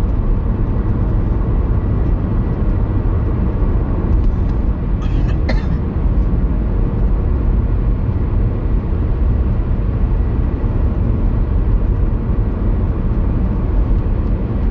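Car driving, heard inside the cabin: a steady low rumble of engine and tyre noise, with a few brief clicks about five seconds in.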